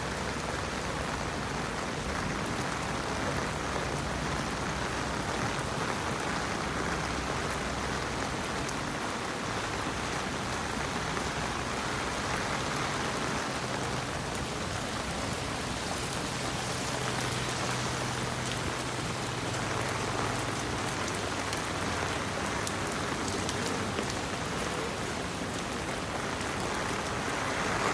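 Steady rain falling, with fine ticks of individual drops. A low hum joins in around the middle and fades out.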